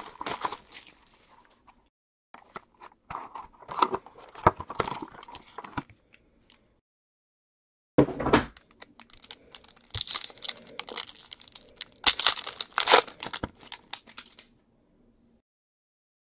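Foil and plastic wrappers of trading-card packs crinkling and tearing as the packs are ripped open, in several bouts, with one sudden louder burst about eight seconds in.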